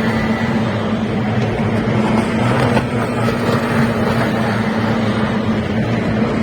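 Two-stroke outboard engines of kyotei racing boats running steadily at speed, a constant buzzing drone.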